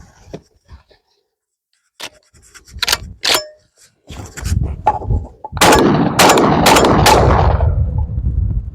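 12-gauge gas-operated semi-automatic shotgun fired four times in quick succession, about half a second apart, over a loud low rumble. A few sharp metallic clicks and a ringing clang come a couple of seconds before the shots.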